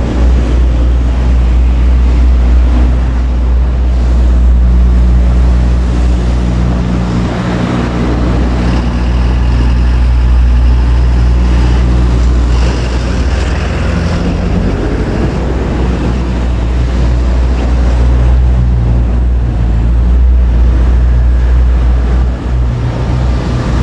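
Steady, loud low rumble of vehicles running.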